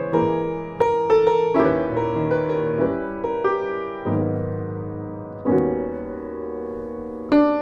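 Solo piano music, slow and gentle, with chords struck every second or two and left to ring out.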